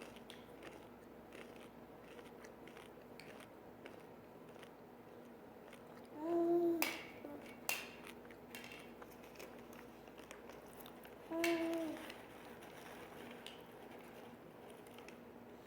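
A baby's voice: two short pitched vocal sounds, one about six seconds in and another about eleven seconds in, among faint small clicks and mouth noises.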